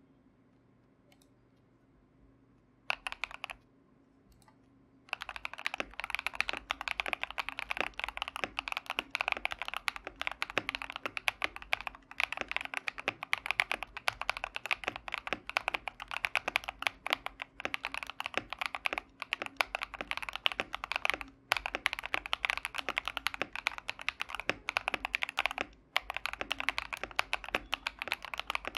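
Fast typing on a mechanical keyboard with stock KTT Hyacinth linear switches in a Tester 68 kit with a steel plate, PE foam and clone keycaps: a quick run of keystrokes about three seconds in, then a steady stream of key presses from about five seconds in, broken by a few short pauses.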